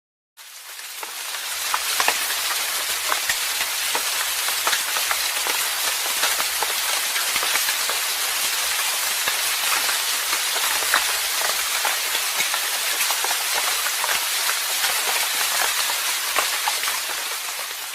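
A recorded noise sound: a steady dense hiss thick with small irregular crackles and taps, fading in at the start and fading out near the end.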